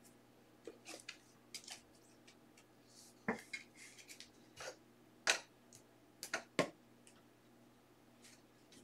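Trading cards being handled at a table: a scatter of faint, light clicks and taps as cards and their plastic holders are picked up, set down and stacked, the sharpest about three, five and six and a half seconds in.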